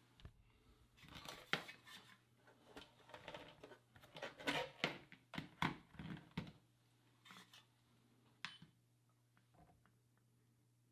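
Light handling noises as a scale and parts are set up: a run of scattered clicks, knocks and rustles for about six seconds, then a few lone taps, over a faint steady low hum.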